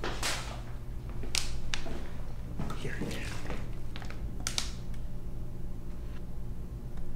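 A handful of short, sharp clicks and taps from a drinking glass being handled, over a steady low hum.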